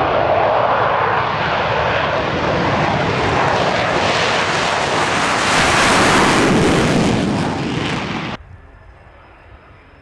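McDonnell Douglas F-4 Phantom II's twin J79 turbojets roaring at high power on the take-off run. The roar swells around six seconds in, then cuts off abruptly about eight seconds in, leaving only a faint background.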